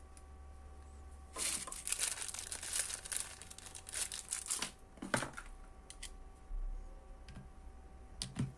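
Handling noise while fitting parts onto the board: about three seconds of crinkling and rustling, then a few separate clicks and knocks.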